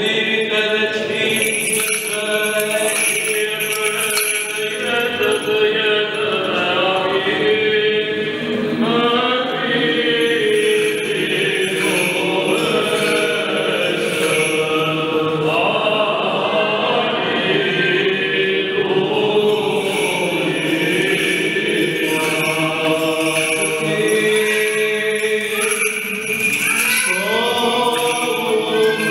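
Several voices singing Byzantine chant in Orthodox church style, phrases held and changing pitch throughout, with light metallic jingling at times.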